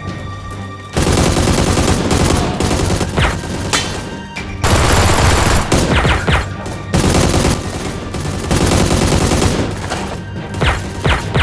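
Long bursts of rapid automatic gunfire, broken by short pauses, with a few short falling whines between the bursts.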